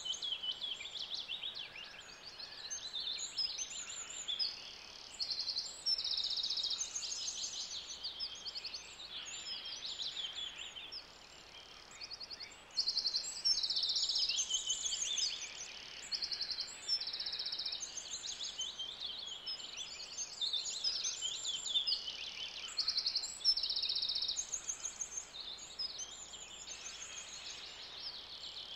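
Outdoor birdsong: many overlapping high chirps and rapid trills, repeating without a break.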